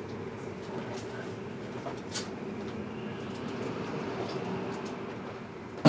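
Steady low room hum with a few faint clicks, and a sharp knock right at the end.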